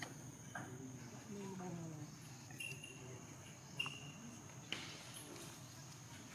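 Steady high-pitched insect drone, like crickets, with a few short high squeaks and soft clicks over it.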